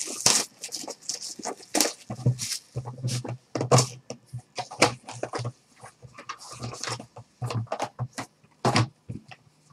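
Trading card boxes being handled and moved on a table: a string of irregular knocks, taps and rustles.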